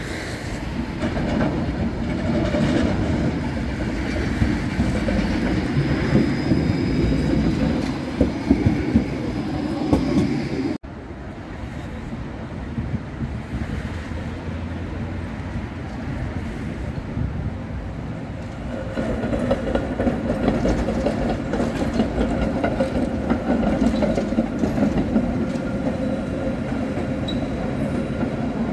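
City trams running on street rails: a low, steady rumble of steel wheels on track, with a few sharp knocks around eight to ten seconds in. The sound drops abruptly about eleven seconds in and swells again from about nineteen seconds as another tram approaches.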